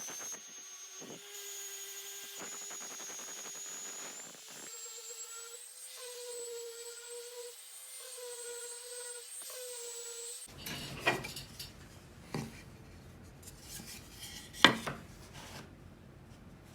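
A small power tool running steadily on wood for about ten seconds, its high whine rising slightly, then stopping. A few sharp wooden knocks follow.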